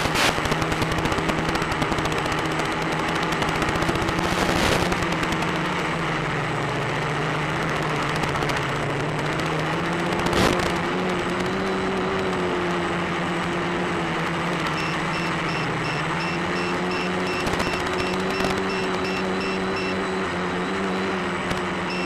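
Electric motors and propellers of an FPV drone droning, their pitch sagging and rising as the throttle changes, carried over the analog video link with heavy crackling static for the first few seconds while the signal breaks up. From about a third of the way in, a high double beep repeats two or three times a second, matching the low-battery warning.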